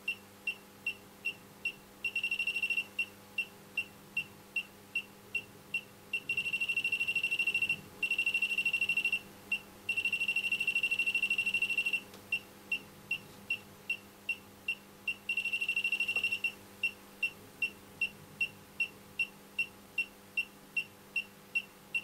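Elitech WJL-6000 halogen refrigerant leak detector beeping a single high tone about three times a second. In several stretches it speeds up into a rapid, near-continuous beep: its sensor is picking up R134a gas leaking slowly from a pipette held at the probe.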